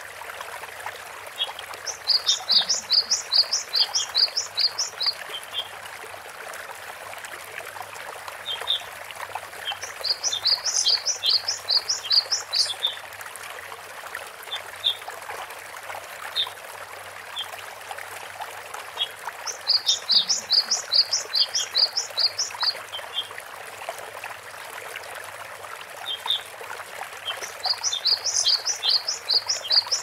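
Great tit singing its ringing two-note song, the phrase repeated rapidly in four bouts of about three seconds each, roughly eight to nine seconds apart, over a steady hiss.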